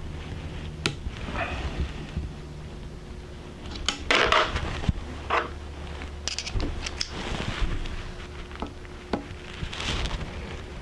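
Small metal tools and gun parts being handled on a workbench: scattered clicks and clinks, with a louder clatter about four seconds in, over a steady low hum.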